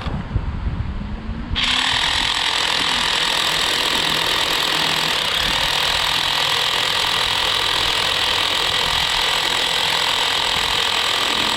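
A machine or power tool runs steadily with a fast mechanical rattle. It starts abruptly about a second and a half in, after a low rumble.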